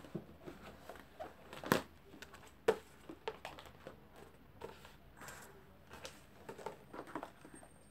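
Handling noises of school supplies being moved and set down on a wooden floor: scattered light clicks and rustles, with two sharper knocks about two and three seconds in.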